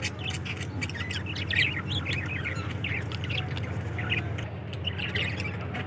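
Budgerigars chirping and chattering in quick, continuous short calls, over a steady low hum.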